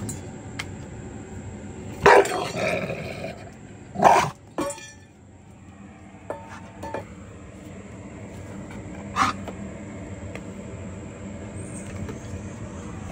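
A resource-guarding dog barking and growling in short outbursts while it guards its food bowl, with a longer outburst about two seconds in, sharp ones around four seconds in, and one more about nine seconds in.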